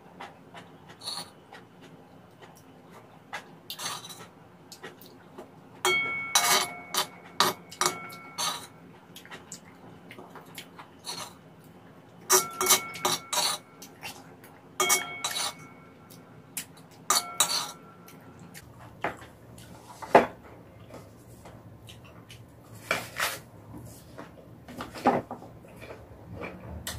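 A metal spoon scraping and clinking against a shallow black pan in several short bursts, the pan ringing briefly with each cluster of strokes. Scattered single clicks fall between the bursts.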